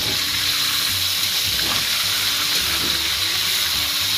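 Turmeric-coated chicken pieces sizzling steadily in hot oil in a wok while being turned with a metal spatula, frying until crisp.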